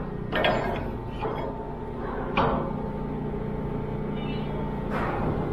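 Steady low machinery hum of a container ship underway, with about four short metallic knocks on the steel lashing-bridge walkway and lashing gear spread through.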